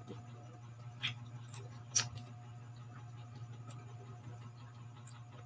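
Two light clinks of a metal fork against a plate, about a second in and at two seconds, with quiet chewing of raw green mango slices over a steady low hum.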